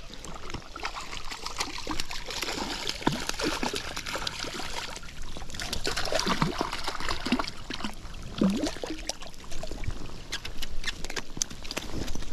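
A hooked trout thrashing at the surface of the lake close to the bank as it is played in: a run of irregular splashes and sloshes of water.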